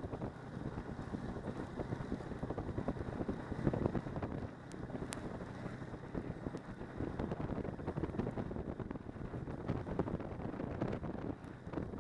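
Snowmobile engine running steadily while riding along a trail, with wind buffeting the microphone.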